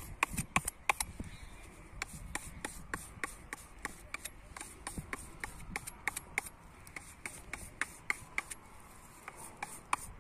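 Curved forged grafting knife blade stroked again and again along a sharpening rod, a quick series of short scraping strokes about three a second, honing an edge that has gone slightly dull.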